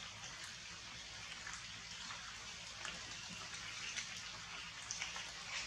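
Rain falling steadily on forest leaves, an even hiss with scattered drips ticking through it.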